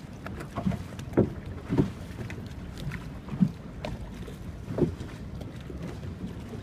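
Canal water slapping and sloshing against the wooden hull of a moving gondola: a few irregular slaps over a steady low rumble.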